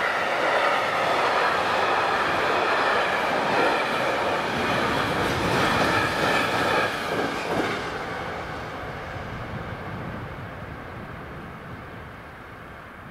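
Freight train of empty container flat wagons rolling past at close range; the noise falls away about eight seconds in as the last wagons go by and fade off.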